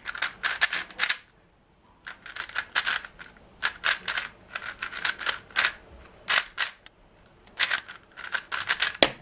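Weilong GTS 3x3 speedcube being turned: bursts of quick plastic clicking as the layers snap round, with short pauses between bursts and a brief silence near two seconds in.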